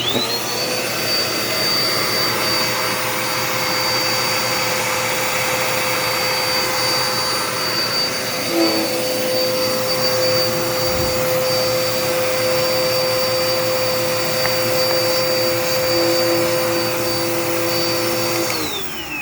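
Dirt Devil Power Max vacuum cleaner switched on and run steadily to test its suction after a paper clog was cleared from its suction tube. About halfway through, a second, lower hum joins the whine. Near the end it is switched off and the pitch falls as the motor spins down.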